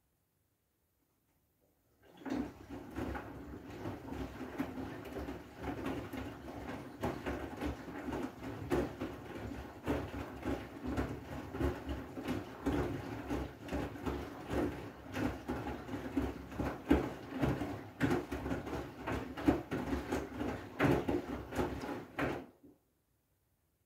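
Front-loading washing machine tumbling a wet load: a steady motor hum with frequent knocks and sloshes as the clothes and water turn in the drum. It starts about two seconds in and cuts off suddenly near the end.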